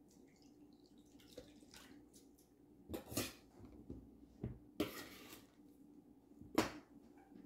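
Kitchen clatter from food preparation at the counter: a handful of separate sharp knocks and clinks of utensils and dishes, with one longer clatter about five seconds in. The loudest knock comes near the end.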